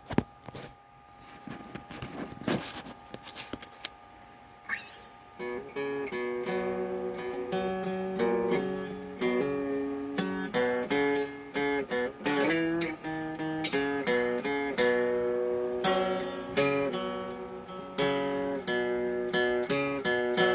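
Acoustic guitar strummed in a steady rhythm of chords. The first few seconds hold only scattered knocks and handling sounds, and the strumming starts about five seconds in.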